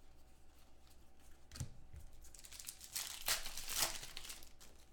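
Trading-card pack wrappers and cards being handled: crinkling and rustling, with a light knock about one and a half seconds in and a louder burst of rustling about three seconds in.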